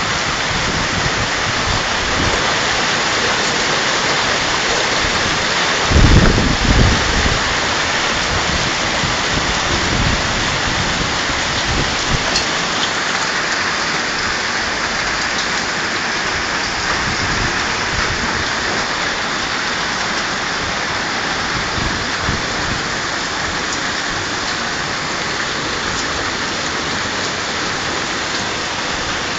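Heavy hailstorm with rain: a steady, dense hiss of hailstones and rain pelting the street and parked cars, with a brief low rumble about six seconds in.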